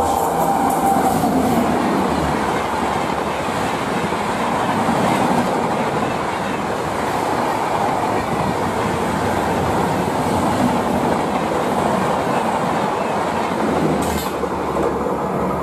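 Shatabdi Express passenger coaches speeding past, a dense steady rush of wheel and rail noise with clickety-clack over the rail joints. The noise begins to ease near the end as the train goes by.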